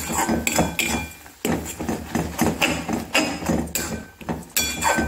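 A wooden spatula knocking and scraping against the sides of a stainless-steel kadhai while stirring a thick orange and grated-coconut mixture. The knocks are irregular, about two or three a second, and some leave a brief metallic ring from the pan.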